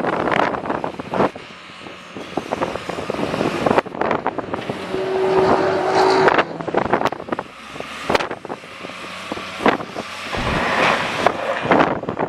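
Loader's diesel engine working, heavily buffeted by wind on the microphone, with a short steady tone about five seconds in.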